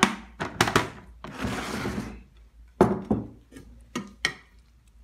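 Plastic lid of an insulated food flask being set on and closed, with crockery being moved on a wooden table: a run of sharp knocks and thunks, with a rustle lasting about a second in the middle.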